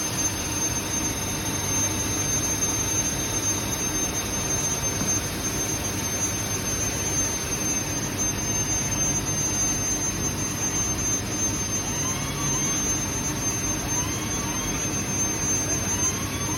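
Ipsen sealed quench furnace and its automatic unloading gear running: a steady machinery drone with a constant high-pitched whine. From about twelve seconds in, short rising squeaks repeat every second or two.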